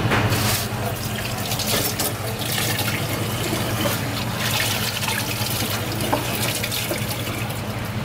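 Water running and splashing in several short, irregular gushes, over a steady low hum.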